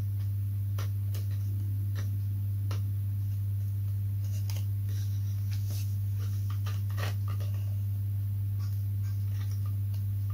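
A steady low hum, under scattered light clicks and taps from small model-aeroplane parts and a glue tube being handled on a workbench.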